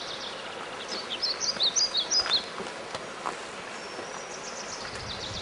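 Small birds chirping over a steady outdoor hiss, with a quick cluster of high chirps about a second in and a fast trill of repeated notes near the end.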